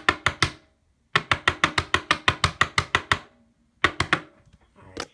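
Rapid banging on a tabletop, about six knocks a second: a few at the start, an unbroken run of about two seconds from a second in, and two more near the end.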